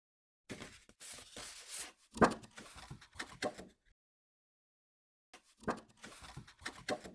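Two bursts of rustling and knocking, with one loud thump about two seconds in.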